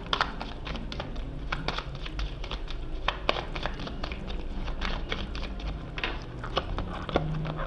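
A tarot deck handled by hand, the cards sliding and flicking against each other in an irregular run of soft clicks.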